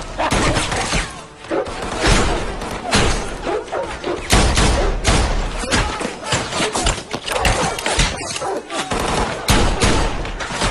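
Gunfire in a film shootout: many shots in quick, irregular succession, some close together, with no letup.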